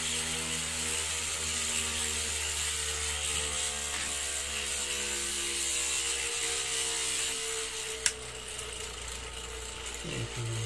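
Gyroscope's heavy aluminium flywheel rotor running at about 4,000 to 5,000 RPM on its DC motor, a steady mechanical whir with several pitched tones, while the gimbal motor works to keep the two-wheeler balanced. A sharp click about eight seconds in, and a brief dip and rise in pitch near the end.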